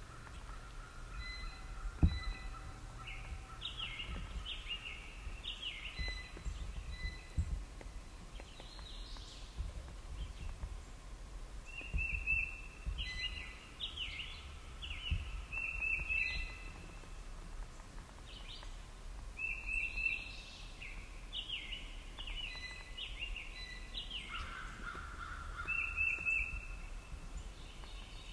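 Small songbirds singing in woodland: short whistled phrases repeated every second or two. A sharp low thump about two seconds in, and a few fainter knocks later.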